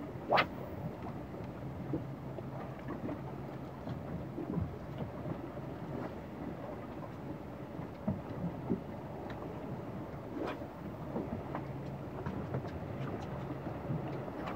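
Small fishing boat's engine running low, under steady wind and water noise on the open sea, with a few sharp knocks on the boat, the loudest just after the start and another about ten seconds in.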